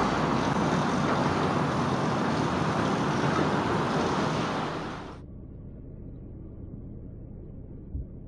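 Steady rushing noise of a train running along the elevated railway line overhead. It cuts off abruptly about five seconds in and gives way to the quieter, low steady road noise inside a moving car.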